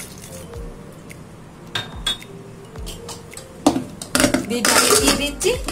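Aluminium pressure cooker being handled: a few light metallic clicks about two seconds in, a sharp knock near four seconds, then a longer stretch of clattering and scraping near the end.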